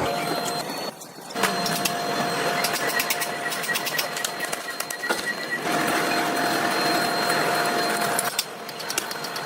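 Industrial machinery running with a steady whine and rapid clicking. The sound changes abruptly about a second in, again past the middle, and near the end.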